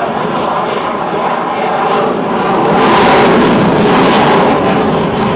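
Aircraft engine noise from a plane flying high overhead. It grows louder and hissier about three seconds in, then eases slightly near the end.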